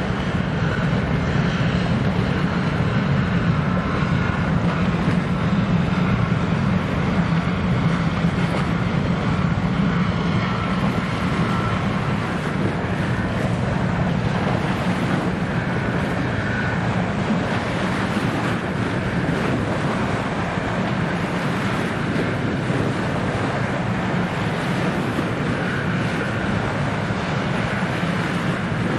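A 142 m container ship's engine running with a steady low drone as the ship passes close, a little louder in the first half. Wash of waves and wind on the microphone lie beneath it.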